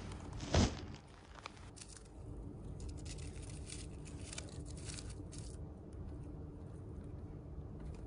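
Chipmunk tearing and nibbling a scrap of paper, with a run of quick crinkles and small tearing sounds through the middle seconds. A louder thump comes just over half a second in.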